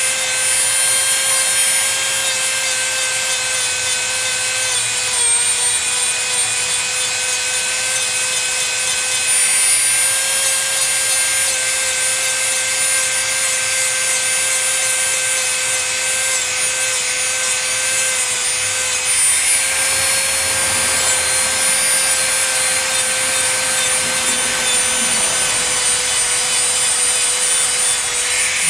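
Dremel rotary tool running at a steady speed with a constant whine, its bit grinding and rubbing paint off a doll's arm.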